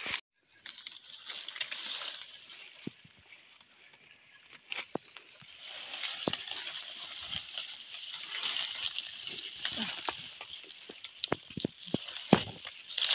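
Leaves and branches of forest undergrowth rustling and brushing as they are pushed aside and handled, with scattered sharp clicks and snaps. The rustling is heaviest from about halfway through.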